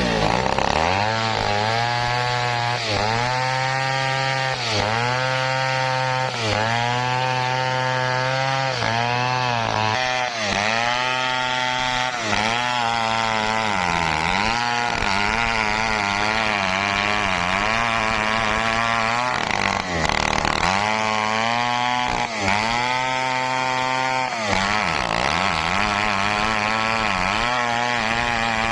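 Stihl 070 two-stroke chainsaw ripping lengthwise through a teak log at high revs. Its pitch sags again and again as the chain bogs down in the cut and climbs back each time the load eases.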